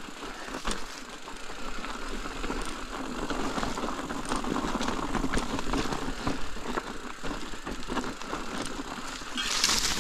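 Mountain bike climbing a rough, rocky trail: tyres crunching over loose rock, with scattered clicks and knocks from the bike. A louder hiss comes in near the end.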